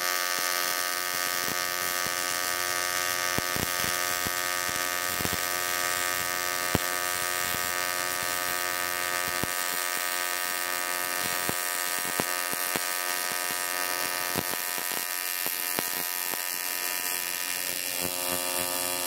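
AC TIG welding arc on aluminum from an HTP Invertig 221, a steady electric buzz with irregular crackling ticks, held unbroken as a continuous bead is run over the tacks.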